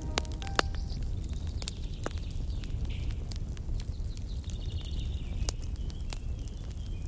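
Campfire crackling: irregular sharp pops and snaps over a steady low rumble.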